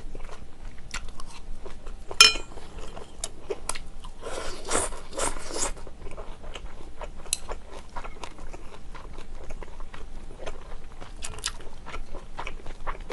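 Close-up chewing and biting of stir-fried yakisoba noodles and beef, with many small wet mouth clicks. A single sharp, ringing clink about two seconds in, and a louder noisy stretch of about a second and a half a little after four seconds in.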